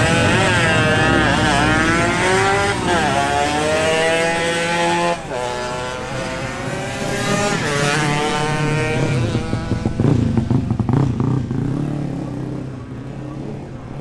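Two two-stroke motorcycles, a Suzuki AX100 and a Yamaha RX, accelerating flat out in a drag race. Their engines rise in pitch through each gear, with a drop at every shift. A few sharp cracks come about ten seconds in, then the sound fades as they move away.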